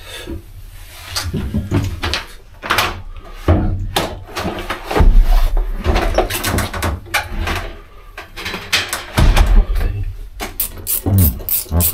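Irregular knocks, clicks and clunks of hands-on work, handling cables and equipment, with two heavier thumps about five and nine seconds in.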